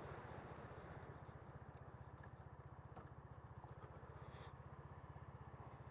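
Bullit Bluroc 125's single-cylinder 125cc engine, a copy of the Suzuki GN125, idling faintly with an even, rapid low pulse. The valve clearances have just been set to 0.08–0.10 mm, and the owner reports that the stalling issue seems solved.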